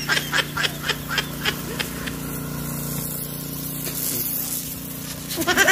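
Steady hiss of a hose-fed orchard spray gun spraying under pressure, over a steady low hum, with a few short clicks in the first couple of seconds.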